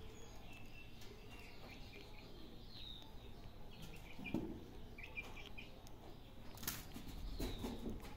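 Kittens scuffling and pawing in and beside a plastic basin of cat litter: a few soft knocks and thumps, the strongest about halfway and near the end. Short, faint high chirps sound in the background.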